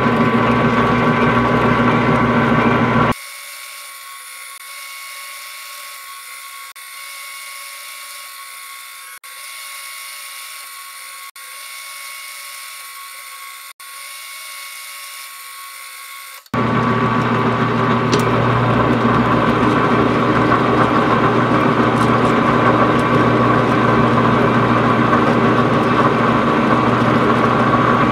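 Metal lathe running under power feed, its motor and geartrain giving a steady whining hum while a threading insert takes a light single-point threading pass. For much of the middle the sound turns quieter and thinner, with its low hum cut away, then returns at full strength.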